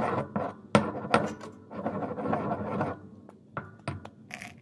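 Stone pestle stirring and grinding a wet white slime mixture in a stone mortar: steady scraping and rubbing of stone on stone, with a few sharp knocks. The scraping eases off after about three seconds, leaving a couple of separate knocks.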